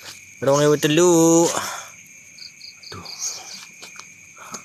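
Crickets chirring in a steady high drone, with a few soft knocks in the second half.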